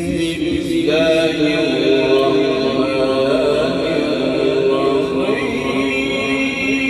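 A voice chanting unaccompanied in long, held, melodic lines with slow glides between notes, in the style of Qur'an recitation (tilawat).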